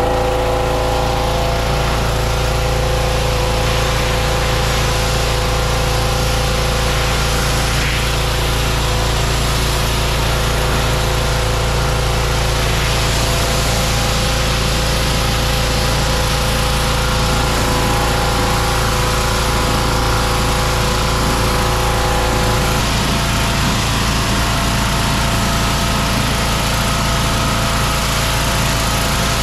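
Pressure washer running steadily, with the hiss of its wand jet rinsing soap foam off the machine.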